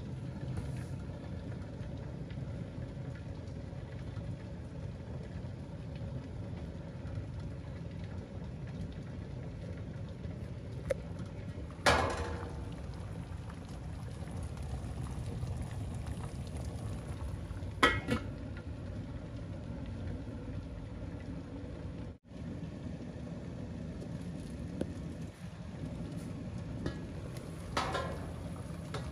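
Water boiling steadily in pots steaming moi moi, a low bubbling rumble. Two sharp clinks of metal or glass ring out partway through, with a few more near the end.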